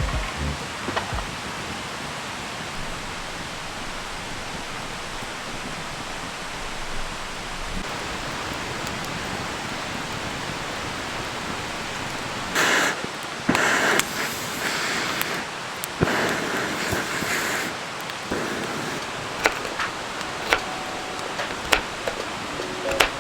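Wood campfire burning with a steady hiss, breaking into sharp crackles and pops through the second half. About halfway through come a few louder rushing bursts of noise.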